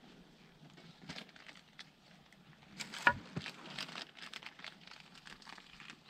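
Wood campfire crackling, with irregular snaps and one loud pop about three seconds in.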